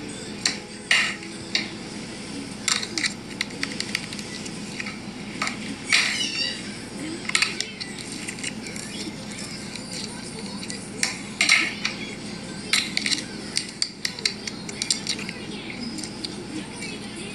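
Slime being squished and mixed by hand in a plastic bowl, with sticky crackles and pops at irregular moments, as slime is pressed out of small plastic tubs.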